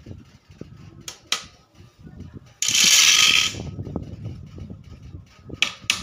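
Small hammer tapping nails into a wooden bird-cage frame: two sharp taps about a second in and two more near the end. Between them comes a loud hiss-like noise about a second long, the loudest sound.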